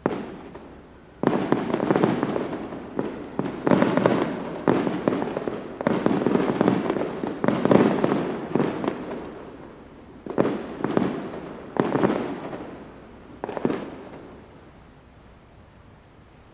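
Fireworks sound effect: a string of about a dozen sudden booming bursts, each dying away over a second or so, coming thick and fast at first and then further apart toward the end.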